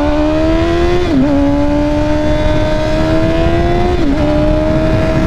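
2007 Honda CBR1000RR Fireblade's inline-four engine accelerating hard through its loud exhaust pipe. The engine note climbs, drops briefly with a gear change about a second in, climbs again, and drops with another shift about four seconds in before holding steady.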